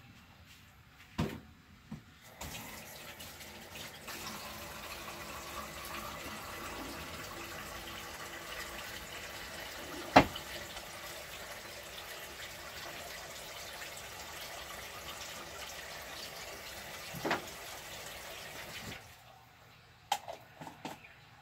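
Kitchen sink tap running steadily for about a quarter of a minute, starting a couple of seconds in and shut off near the end. A sharp knock about halfway through is the loudest sound, with a lighter one later.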